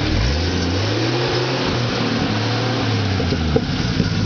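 Four-wheel-drive competition vehicle's engine revving up, held at steady revs, then easing off about three seconds in, with a couple of sharp knocks near the end.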